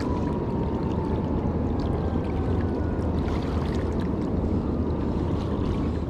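Steady rushing of river water flowing over a weir, an even noise heaviest in the low end. A faint tone slides slowly down in pitch during the first two seconds.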